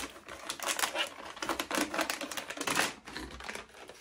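Plastic bottles and packets being rummaged through in a cardboard box: a dense run of rapid clicks and rattles as the containers knock together, thinning out after about three seconds.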